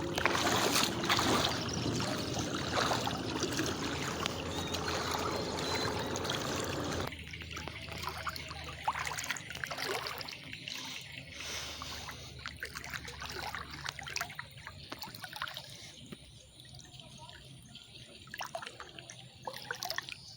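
Water trickling and splashing: a dense, even wash for about the first seven seconds that drops off abruptly, then fainter, patchier splashing that fades.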